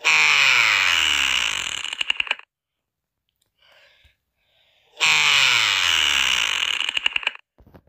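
A logo sound effect played twice, about five seconds apart. Each time it is a whir that falls in pitch under a bright hiss, lasting about two and a half seconds and ending in a quick stutter of clicks.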